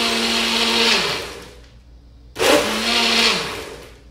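Personal bullet-style blender running a shake of ice cubes and almond milk, stopping and winding down about a second in, then pulsed again for about a second before winding down once more.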